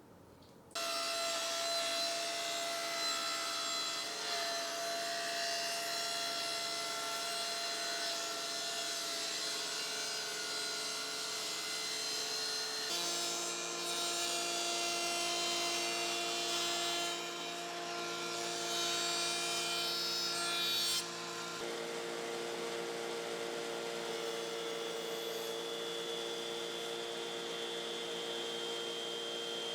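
Power saw running and cutting wood, starting suddenly about a second in and holding steady, with its pitch shifting abruptly a few times.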